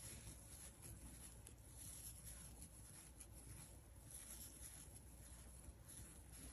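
Near silence, with faint scratchy rustling of yarn being worked with a crochet hook as double crochet stitches are made.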